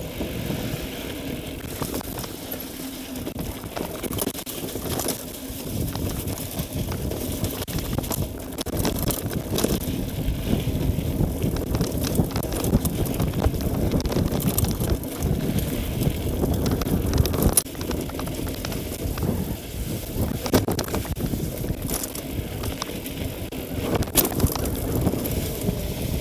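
Mountain bike riding over a rough, muddy dirt trail: a steady rumble of tyres and wind on the microphone, with scattered knocks and rattles as the bike hits bumps.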